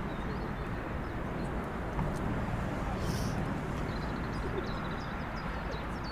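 A steady low outdoor rumble with faint, short high bird chirps scattered through it.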